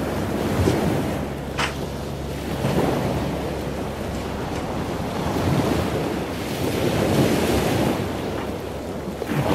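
Wind buffeting the microphone: an uneven, gusting rumble.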